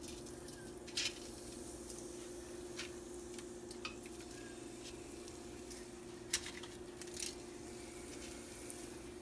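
Breaded banana-blossom pieces being set down one at a time on a perforated metal deep-fryer basket: a few soft taps and light clicks, over a steady low hum.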